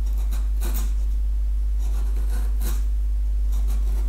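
Hand chisel paring thin shavings from the wood of a halving-joint notch, pushed by hand: a few short scraping strokes. A steady low hum sits underneath.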